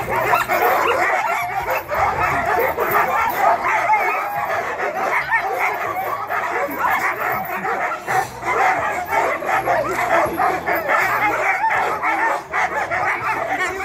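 A team of harnessed sled dogs on a gangline yipping, barking and whining together in one continuous, overlapping chorus with no let-up: the excited clamour of dogs hooked up and eager to pull.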